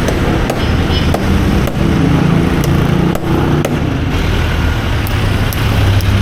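Steady street traffic, a low engine rumble and hum, with a dozen or so small sharp clicks and snaps scattered through it.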